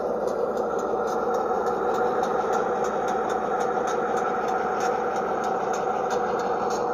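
A G scale GP9 model locomotive's onboard sound system playing a diesel engine idling steadily, with a faint regular ticking about three times a second.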